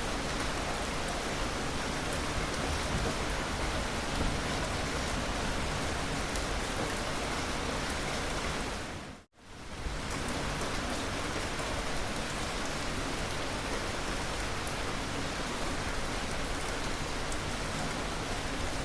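Steady, dense rainfall hiss. About halfway through it fades out to a brief moment of silence and comes straight back in.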